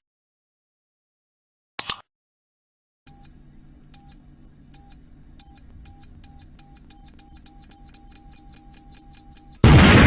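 A sharp click, then a high electronic beep that repeats faster and faster until it almost runs together, ended near the end by a loud explosion: a time-bomb countdown sound effect.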